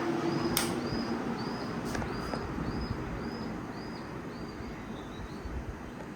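Ceiling fan's electrical hum dying away within the first second and a half, with a sharp click about half a second in. A faint high chirp repeats about twice a second throughout.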